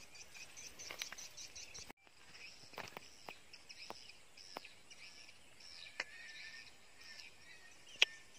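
Faint outdoor ambience of repeated high chirps, with a few sharp clicks, the loudest near the end, and a brief break about two seconds in.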